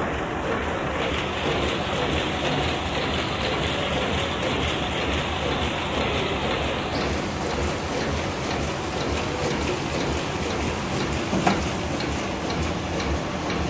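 Shiki PC-4530 flatbed label printing press running, a steady dense mechanical clatter. A single brief knock sounds about eleven seconds in.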